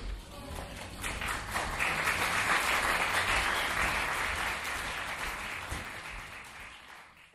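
Theatre audience applauding, building about a second in, then tapering off near the end and cutting off abruptly.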